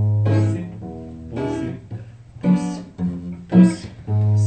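Acoustic guitar strummed in a steady rhythm, a chord about every second, with a low bass note ringing at the start and again near the end.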